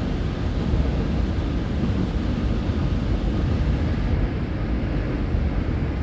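Korail Line 4 electric train running at speed between stations, heard from inside the car: a steady, deep rumble of wheels on rail and running gear.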